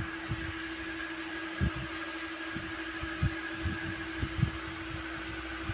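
Steady hum and hiss of room tone, likely a running fan, with scattered soft low thumps of handling, the clearest about one and a half seconds in and about three seconds in.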